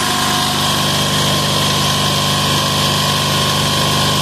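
186FA single-cylinder air-cooled diesel engine running steadily at an even speed.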